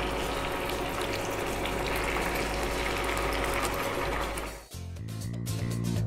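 Marinated whole tilapia sizzling and crackling as they shallow-fry in hot oil in a pan. The sizzle cuts off abruptly about four and a half seconds in, and background music follows.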